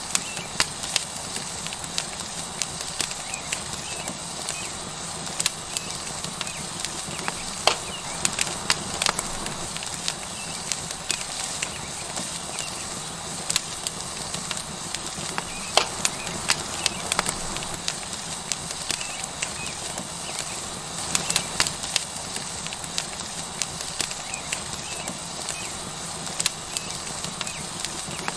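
Tomahawk steak sizzling on a hot rock over a wood fire: a steady hiss with burning wood crackling and popping irregularly throughout.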